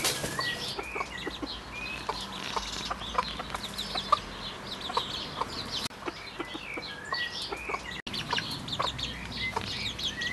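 A flock of chickens settling to roost in a tree, clucking and chattering softly among themselves. Short scattered clucks run through it over a steady patter of high chirps, with a few drawn-out rising and falling calls.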